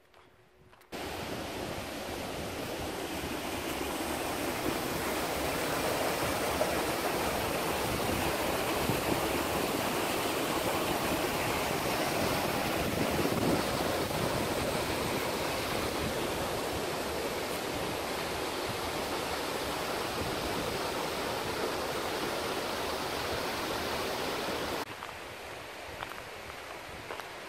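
A rocky creek rushing over boulders, a steady wash of water noise that starts suddenly about a second in and drops to a quieter level near the end.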